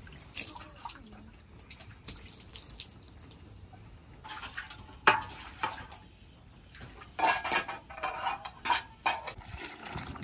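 A metal cooking pot, its lid and an enamel bowl clattering and clinking as they are handled, with one sharp clank about five seconds in and a run of clatters near the end. Some water splashes.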